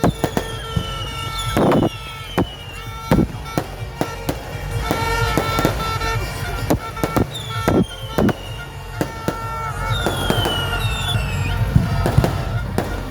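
Fireworks bursting in quick succession, many sharp bangs, with several falling whistles among them.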